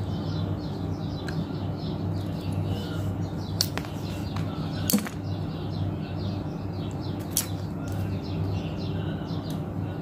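Pliers clicking as they cut and bend the thin metal spring strip of a replacement carbon brush for an electric blower motor: a few sharp snips, the loudest about five seconds in. Birds chirp steadily in the background over a low hum.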